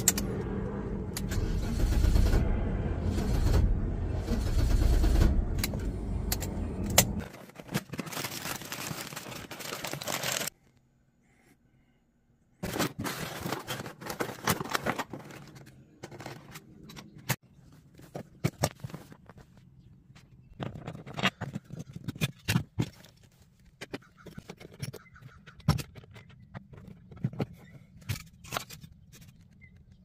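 BMW 535i E34's M30 straight-six engine running steadily, heard from inside the cabin, on a car that is being fixed for a rough idle and misfiring; the engine sound ends about seven seconds in. After a short silence come scattered light clicks and rustling as a new distributor cap is handled in its box.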